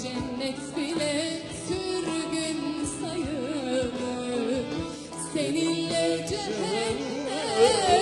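A woman singing a slow, ornamented Turkish folk song, the voice wavering with vibrato, over a live instrumental ensemble with a light percussion beat.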